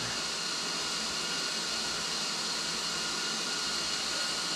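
Steady, even hiss of background noise, with no crackle or clicks.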